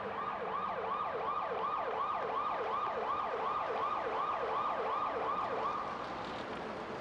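Police car siren on a fast yelp, its pitch sweeping up and down about three times a second, stopping about six seconds in.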